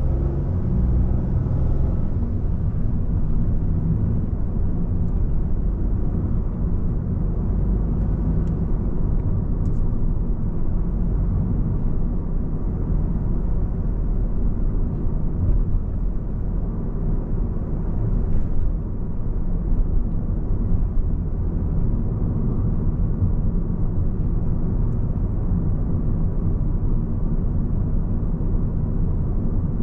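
Steady low rumble of a car on the move: road, engine and wind noise, with no clear events.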